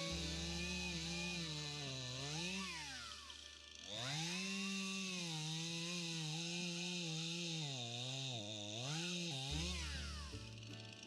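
Stihl MS171 two-stroke chainsaw running at high revs while cutting a log. The revs drop away about three seconds in and climb back at around four seconds, then waver and dip again near the end.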